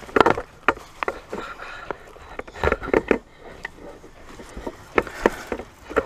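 Footsteps crunching through dry leaves, twigs and debris, with irregular cracks and snaps of breaking sticks.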